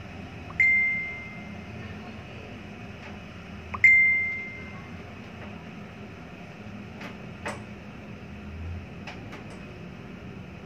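Ultrasound machine beeping twice, about three seconds apart, each a single clear electronic tone that fades over about a second, as the scan image is frozen for measurement. A steady low hum runs underneath, with a few faint clicks later on.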